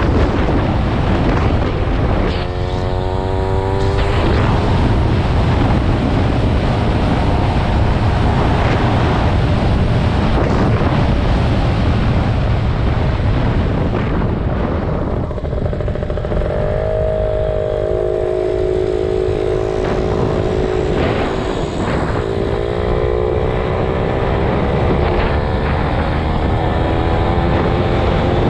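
Small motorbike engine running while riding, with heavy wind rumble on the microphone. The engine pitch climbs as it accelerates a couple of seconds in, holds steady for a while past the middle, then climbs again over the last several seconds.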